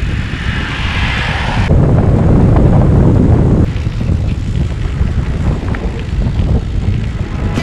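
Wind rumbling on a bicycle-mounted camera's microphone while riding on a paved path, a steady low noise. A brighter hiss rides over it for the first second and a half, and the sound shifts abruptly twice, about two and four seconds in.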